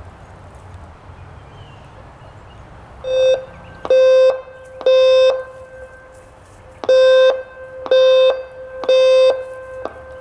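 Federal Signal Modulator II 5020B outdoor warning siren sounding its coded pulse alert: two cycles of three loud steady tones, each about half a second long and about a second apart. The pulses start about three seconds in, and a pause of about a second and a half separates the two cycles.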